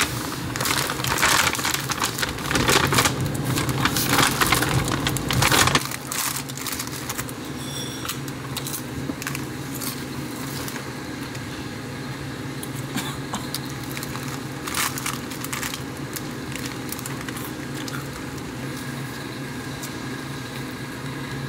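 Paper gift bag and plastic crisp packet rustling and crinkling as they are handled and unpacked, dense for about the first six seconds, then only an occasional crinkle.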